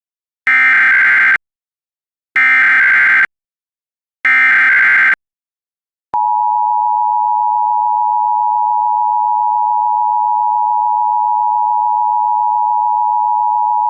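Emergency Alert System SAME header: three short bursts of digital data tones, each about a second long, encoding a Required Monthly Test. About six seconds in, the EAS attention signal begins: a steady two-tone sound of 853 and 960 Hz played together.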